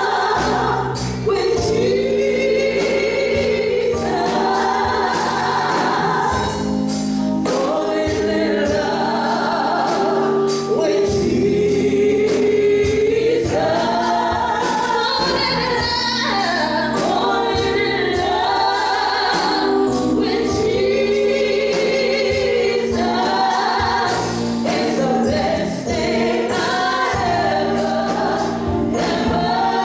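Congregation or choir singing a gospel hymn with instrumental accompaniment, in long held phrases over a steady beat.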